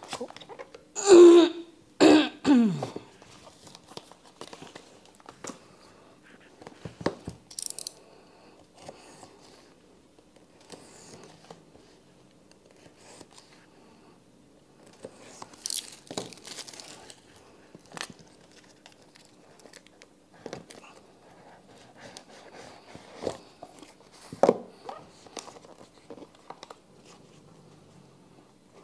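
A person coughs twice about a second in. Then come the quieter clicks and rustles of a smartphone retail box and its packaging being opened and handled, with a sharper click near the end.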